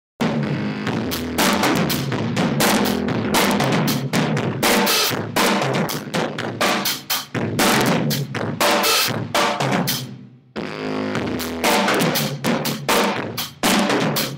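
Band playing loud, led by a drum kit with kick, snare and crashing cymbals, over sustained low notes from an amplified instrument. The sound cuts in suddenly just after the start, drops out briefly about ten seconds in, then resumes.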